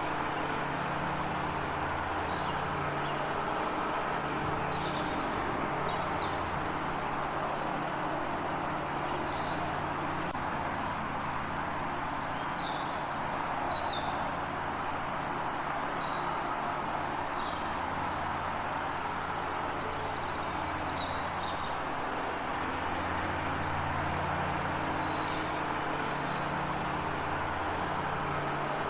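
Small birds chirping in short, scattered calls over a steady low hum and a constant wash of background noise.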